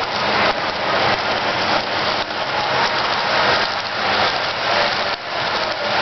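HO scale model freight cars rolling past close by: a steady, even rattle of many small wheels running along the track.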